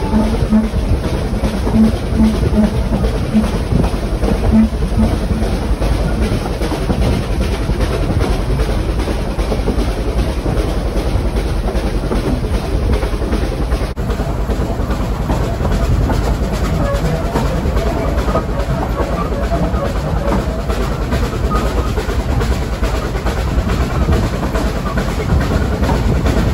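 Two Vale of Rheidol narrow-gauge steam tank locomotives, Nos 7 and 8, working hard uphill, heard from the train they haul: a loud, continuous rhythmic beat of their exhaust over the rumble and clatter of the carriage wheels on the rails.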